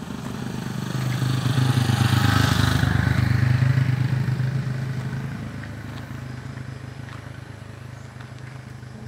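A motor vehicle's engine passing by: it grows louder over the first couple of seconds, peaks, then fades away over the next few.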